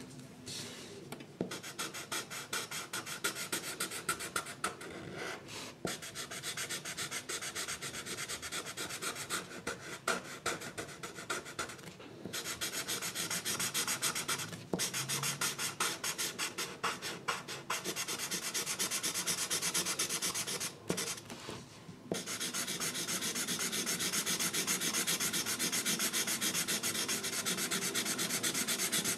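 A drawing tool rubbing on paper in rapid back-and-forth strokes, as in colouring or shading. It stops briefly a few times, then runs steadily and evenly for the last several seconds.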